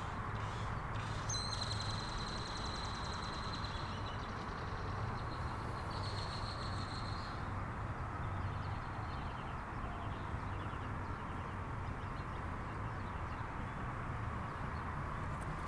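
1987 Honda CBR600F Hurricane's inline-four engine idling steadily.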